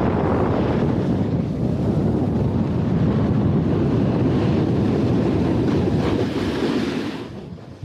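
Wind buffeting a small action camera's microphone, mixed with the rush of a Lib Tech Orca snowboard sliding and carving over groomed snow at speed. A sharper scraping hiss builds in the second half, then the whole rush drops off quickly near the end.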